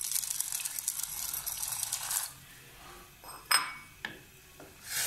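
Dry macaroni poured from a plate into a steel saucepan of boiling water, the pieces clattering in for about two seconds. Then one sharp ringing clink and a couple of lighter knocks as the pasta is stirred.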